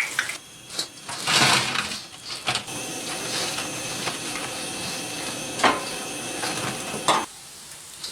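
Hot cooking oil hissing steadily in a wok, with sharp metal utensil knocks twice in the second half. A louder noisy burst comes about a second in, and the hiss stops abruptly near the end.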